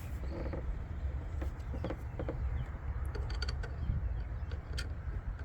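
Light scattered metallic clicks and ticks as a new aluminum A/C pressure switch is threaded onto its port and snugged with a wrench, over a steady low rumble.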